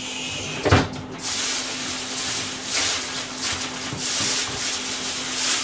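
A single sharp knock about a second in, like a kitchen cupboard door shutting, followed by a steady hissing noise that swells and eases.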